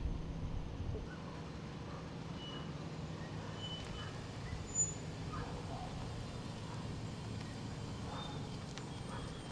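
Steady low hum of a car driving, with a brief faint blip about five seconds in.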